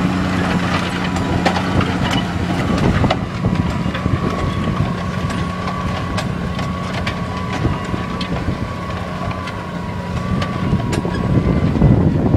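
Case IH 285 hp tractor working under load, pulling a Simba Solo 300 disc cultivator through ploughed soil, with the discs' rumble and scattered sharp clicks and knocks of clods against the steel. A steady high whine comes in about four seconds in and fades near the end.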